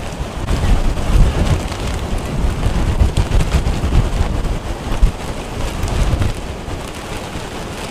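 Hurricane wind and heavy rain: a loud, gusting rush of rain with deep wind rumble buffeting the microphone, swelling and easing with the gusts.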